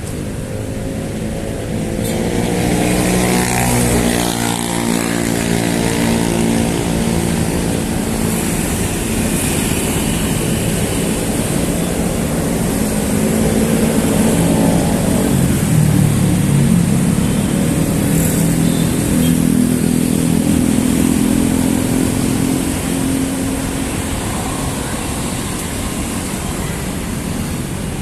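Busy city road traffic: engines of vehicles passing close by over a steady hiss of traffic, their pitch sliding up and down as they go past. It is loudest a few seconds in and again through the middle.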